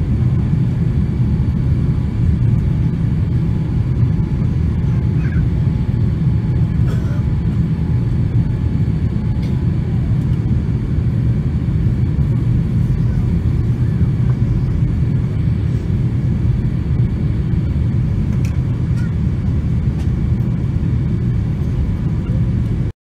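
Steady low rumble of a jet airliner's engines and airflow heard inside the passenger cabin in flight. It cuts off suddenly near the end.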